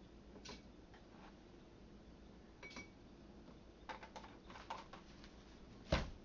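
Kitchen containers and utensils being handled on a counter: scattered light clicks and clinks, a quick run of them about four seconds in, and one louder knock near the end.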